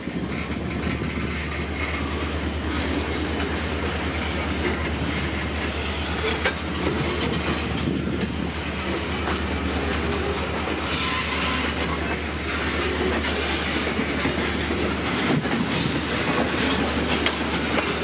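Freight train's cars rolling slowly along the track, wheels clacking over the rail joints.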